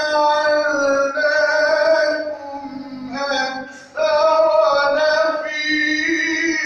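A man's melodic Quran recitation (tilawat): one high voice holding long, ornamented notes that slide between pitches, with a lull in the middle and a strong new phrase about four seconds in.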